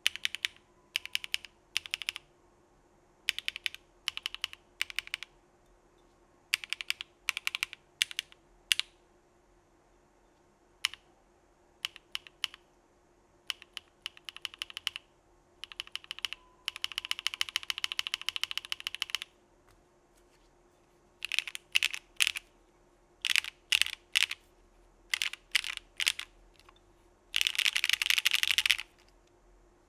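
Typing on a Geonworks Frog mechanical keyboard fitted with lubed Sillyworks Hyacinth v2 linear switches in an aluminum plate, with CRP Desko keycaps. The keystrokes come in short runs with pauses between them, and there are two longer, fast runs, one about halfway through and one near the end.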